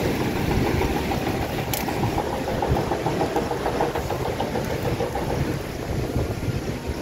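Steady low rushing rumble of a river, with wind on the microphone.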